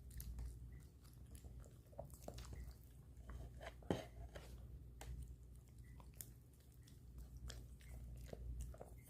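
Small Maltese dog chewing and biting food, faint irregular clicks and smacks, with one sharper click about four seconds in.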